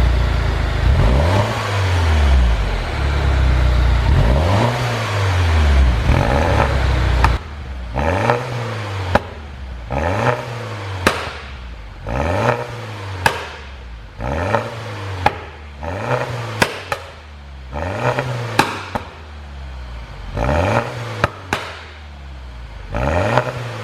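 MINI Coupe engine revved repeatedly with exhaust pops, the sound of a pop-and-bang tune. First come a few longer revs, then short throttle blips about once a second, with sharp cracks from the exhaust as the revs drop after each blip.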